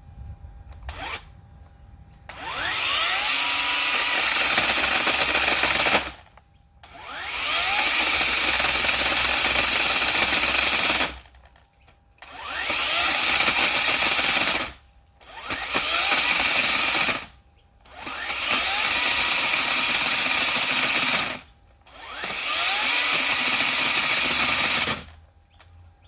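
Makita brushless battery power head with a chainsaw attachment cutting dead hardwood: the motor runs in six bursts of a few seconds each, whining up at the start of each, with short pauses between cuts.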